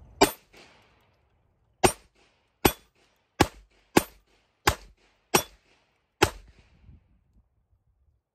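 Eight shots from a Ruger LCP II .22 LR pocket pistol fired at a hanging steel ding plate. The shots are sharp cracks at an uneven pace, with a longer pause after the first shot, then about one shot every 0.6 to 0.8 s.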